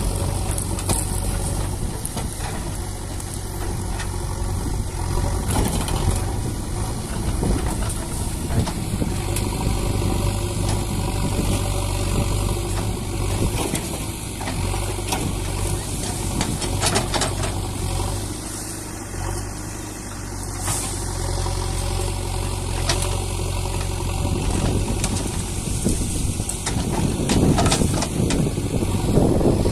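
Excavator's diesel engine running steadily, with a few sharp knocks and cracks scattered through.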